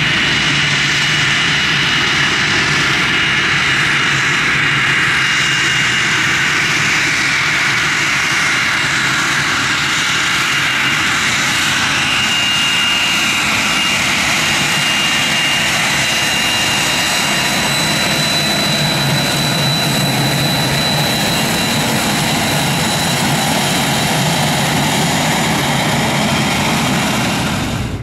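Twin rear-mounted turbofan engines of a business jet at taxi power, a steady rush with a thin high whine running through it. The sound drops off sharply near the end.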